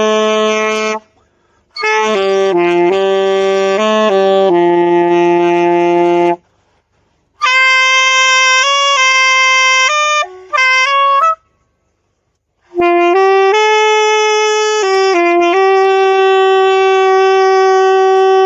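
A saxophone played solo, one slow note at a time, in four short phrases with pauses for breath between them; the third phrase sits higher than the others.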